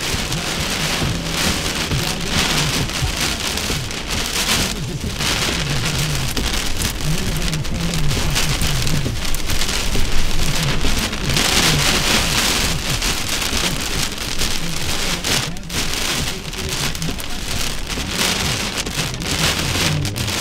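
Heavy rain pelting down steadily, heaviest about halfway through, with two brief lulls.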